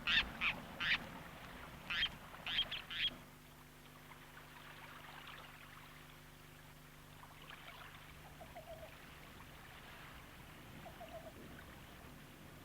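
A quick run of short bird calls for about three seconds, then only a faint low hum with a few soft calls now and then.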